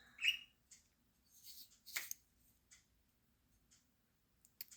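A few faint clicks and rubs from a metal multi-tool being handled and turned over in the hand, with short scrapes a third of a second in and around two seconds in.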